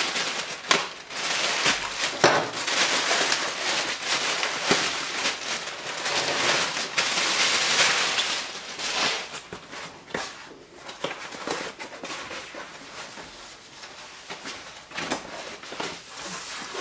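Plastic courier bag and white foam packing wrap being torn open and pulled apart by hand: crinkling, crackling rustles with sharp snaps. Busy and loud for the first ten seconds or so, quieter and sparser after.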